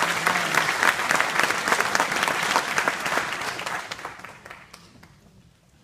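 Audience clapping, a dense patter of many hands that dies away about four to five seconds in.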